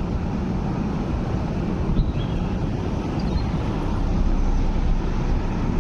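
Hong Kong Peak Tram 6th-generation funicular car rolling past on its rails: a steady low rumble, with a few faint high chirps.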